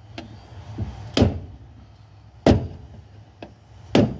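A hammer strikes the handle of a flathead screwdriver three times, with sharp blows about a second and a half apart and a few lighter taps between. The screwdriver tip is being driven against the fuel pump's lock ring to knock it loose.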